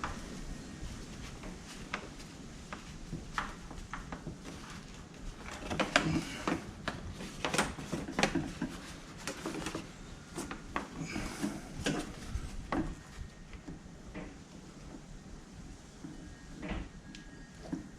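Irregular clicks, knocks and light rattles of parts and tools being handled, thickest through the middle of the stretch.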